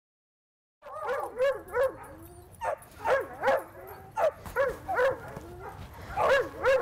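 Dogs barking and yipping in play: short, high calls coming in quick clusters, starting about a second in.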